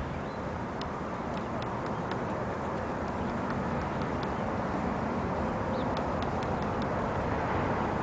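Woodpecker pecking at a wooden utility pole: irregular light taps, with a steady low rumble of background noise underneath.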